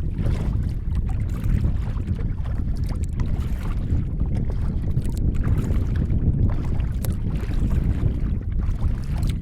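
Wind buffeting the microphone with a steady low rumble, over faint splashing of seawater around a kayak.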